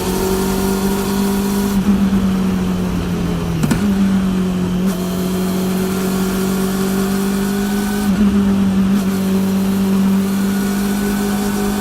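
Honda CB400 Super Four's inline-four engine through a TSR E02 slip-on exhaust, heard riding, its note climbing slowly with two brief dips in pitch about 4 and 8 seconds in. Loud drive-chain noise runs under it.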